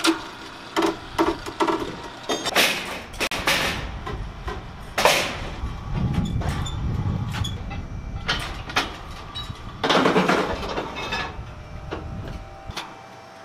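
Metal clanks and knocks of steel carnival-ride parts being handled on a steel-grated ride deck, with a few longer scraping noises. A low mechanical rumble comes in about six seconds in and stops shortly before the end.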